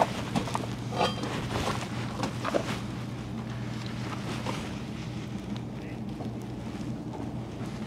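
A few light knocks as a bronze propeller is worked onto its steel shaft taper in the first couple of seconds, over a steady low hum and some wind on the microphone.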